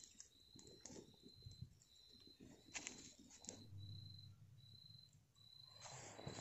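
Faint night insects chirping: short high-pitched pulses about twice a second, steady and even. Scattered light clicks and a brief rustle near the end.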